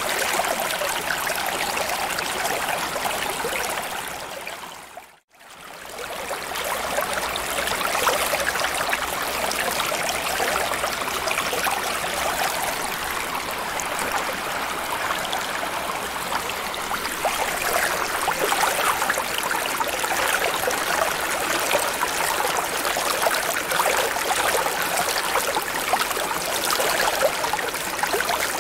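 Continuous water ambience of trickling, bubbling water, steady in level. It fades out to near silence about five seconds in and fades straight back up.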